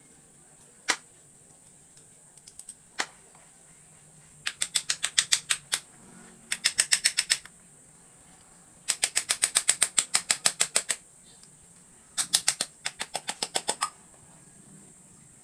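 Hand tools working on a motorcycle carburetor being taken apart: two single sharp clicks, then four bursts of rapid, even clicking, about eight clicks a second.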